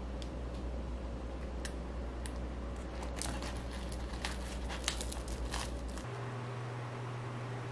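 Hands handling sliced ham and a flaky croissant, making a string of light crinkling, crackling rustles about halfway through, over a steady low hum.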